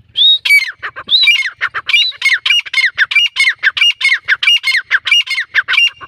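Grey francolin calling: a loud, harsh, rhythmic run of repeated notes, about three a second, each sliding down in pitch. It starts just after the beginning and stops shortly before the end.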